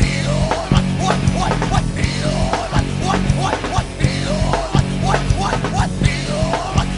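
Loud rock music with distorted guitars, a bass line and drums, and a melodic lead line repeating in short rising and falling phrases.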